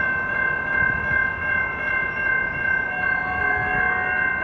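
Tri-Rail commuter train approaching with its horn sounding, the low horn tones fading partway and strengthening again near the end, over a steady high-pitched ringing tone.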